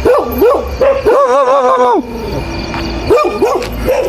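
Dog yelping in short rising-and-falling calls, with one long wavering howl about a second in.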